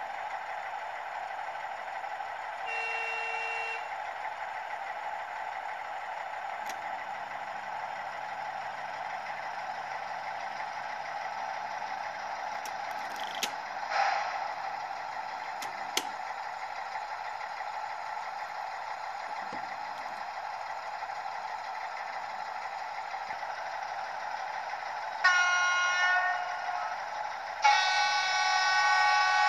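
Sound decoder of a model SU46 diesel locomotive, its small speaker playing the diesel engine running steadily. Near the end come two horn blasts, the second one longer and louder.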